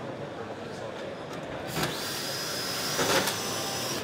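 Cordless drill-driver driving a screw down into the roof lantern's upstand: after a bit under two seconds it starts up with a high, steady whine, runs for about two seconds and cuts off suddenly at the end.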